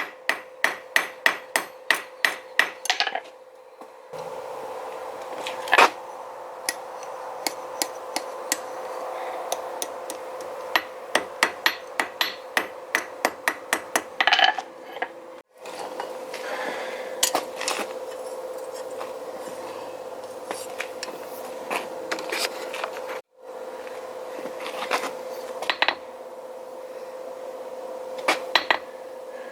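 Hammer blows on hot steel over an anvil while forging J hooks. There is a fast, even run of about three blows a second at the start, then scattered blows and short quick runs over a steady hum. The sound drops out abruptly twice.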